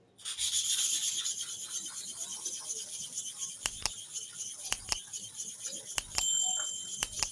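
Bottom blade of a Starex hair clipper rubbed back and forth on an oiled sharpening stone: a steady, hissing metal-on-stone scrape, with about four sharp clicks in the second half.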